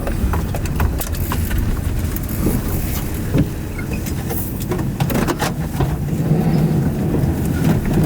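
Steady low rumble of a stopped chase vehicle buffeted by storm wind, with scattered light clicks and taps.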